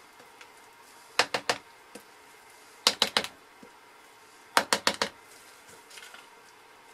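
Spatula rapped against the rim of a plastic mixing bowl to knock off the last of the soap batter: three quick runs of four or five sharp taps.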